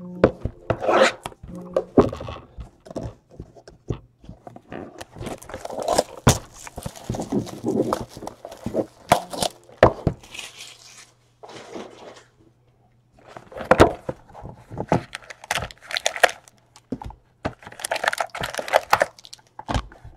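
Hands handling and opening cardboard trading-card boxes on a tabletop: a string of knocks and scraping as the boxes are moved and set down, with a quieter pause partway through.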